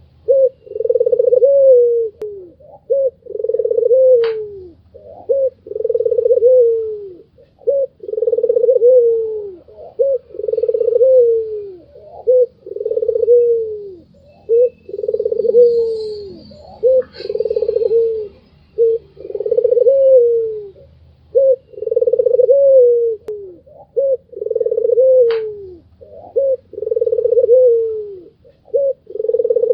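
White Barbary dove (albino 'puter') cooing over and over: a steady run of low, loud coos, each about a second long and dropping in pitch at its end, with short quick notes between them.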